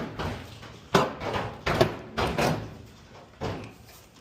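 Clothes dryer cabinet being tilted back and handled: a handful of knocks and thumps, roughly a second apart, with short scraping noise after them, the loudest about a second in.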